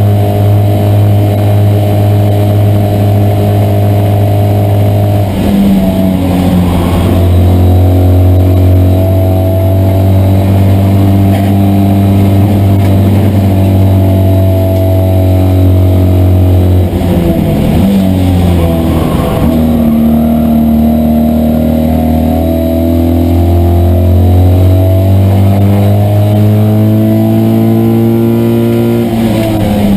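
Citroën 2CV race car's air-cooled flat-twin engine running hard at high revs, heard from inside the car's cabin. Its note breaks briefly and changes pitch three times, about a quarter of the way in, just past halfway and at the very end, and creeps up in pitch between the later two breaks.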